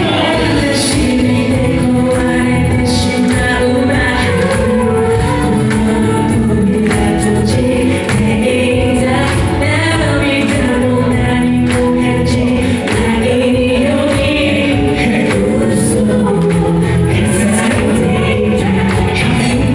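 A vocal group singing into microphones over loud, continuous music.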